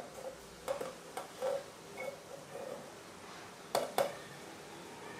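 Red grapes dropped by hand into a container: a string of soft taps, then two sharper clicks about four seconds in.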